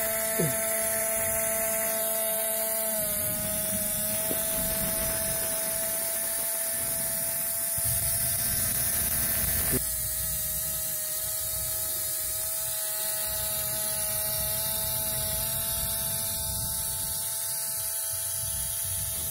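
Small Tamiya hobby electric motor inside a homemade miniature generator running with a steady whine and several overtones.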